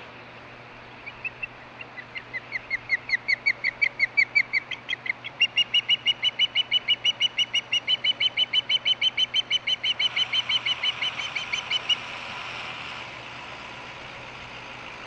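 Juvenile osprey calling a long, rapid series of loud, whistled chirps, about four or five a second, that starts about a second in and stops about twelve seconds in.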